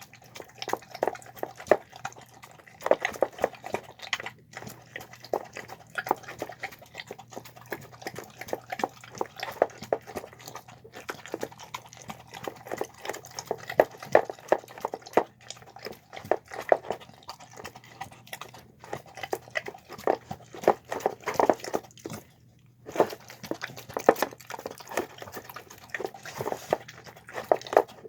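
A pit bull–shar-pei mix dog eating soft homemade food of chicken, lentils, carrots and rice, with rapid wet chewing, smacking and lapping. There is a brief pause about three quarters of the way through.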